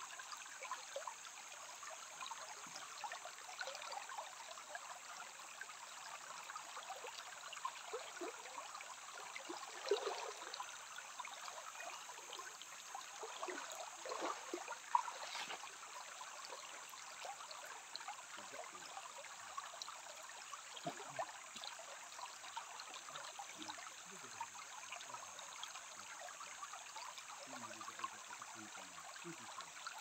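Shallow stream babbling over gravel and stones: a steady rush of running water with small gurgles throughout, and a couple of slightly louder gurgles around ten and fifteen seconds in.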